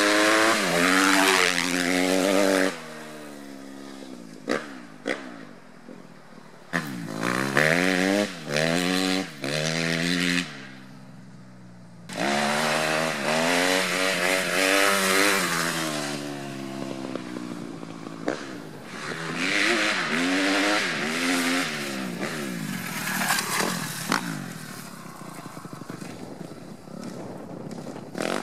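Motocross dirt bike engines revving hard under acceleration, the engine note climbing in rising sweeps again and again, with abrupt changes in loudness between passes.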